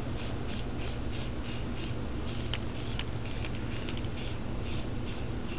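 Aerosol spray paint can spraying in short, repeated bursts of hiss, about three a second.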